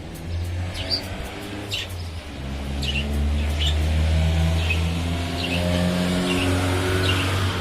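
A motor vehicle's engine running, getting louder about three seconds in and holding there, with short high bird chirps repeated over it.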